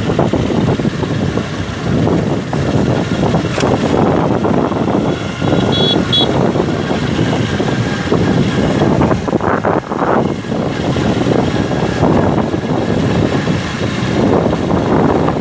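Wind blowing across a phone's microphone while the person holding it runs: a loud, uneven rushing noise.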